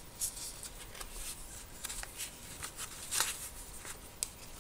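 Paper rustling and scraping as the card and paper pages of a handmade scrapbook mini-album are handled and turned, in short irregular strokes, the loudest about three seconds in.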